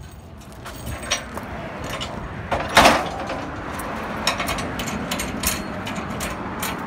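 Metal clanks and chain rattling as a U-Haul tow dolly's coupler is worked onto an SUV's hitch ball, with a loud clatter nearly three seconds in, over steady background noise.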